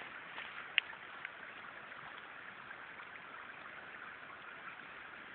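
Steady rushing of a small woodland stream. A single sharp click comes a little under a second in.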